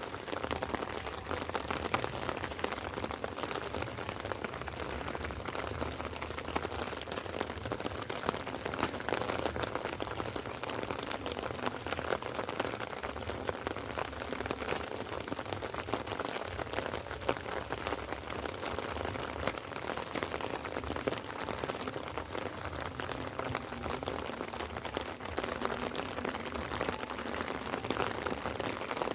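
Light rain falling: a steady hiss thick with the patter of individual drops.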